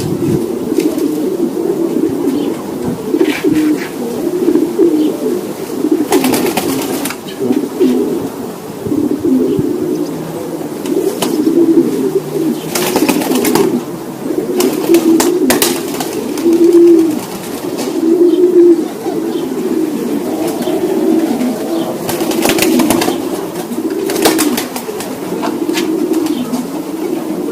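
Many racing pigeons cooing continuously in overlapping low warbles, with a few short noisy bursts across all pitches scattered through.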